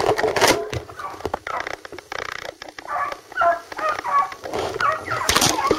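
Hunting dogs baying on a rabbit's track: many short, pitched calls. A few sharp knocks come near the start and about five seconds in.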